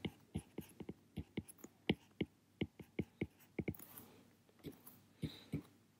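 A stylus tapping and ticking on a tablet screen while handwriting a word, an irregular run of light ticks about three a second.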